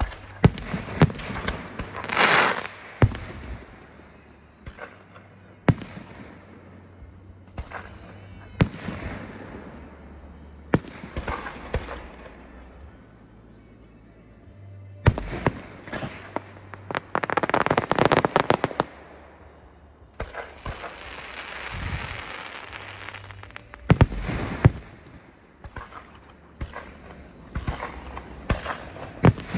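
Fireworks display: aerial shells bursting with sharp bangs at irregular intervals, and several stretches of dense crackling, the longest lasting several seconds about halfway through.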